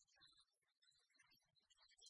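Near silence, with only faint scattered specks of noise.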